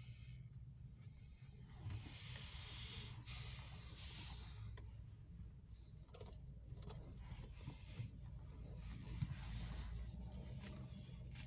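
Steady low hum and hiss inside a parked car's cabin, with a few faint rustles.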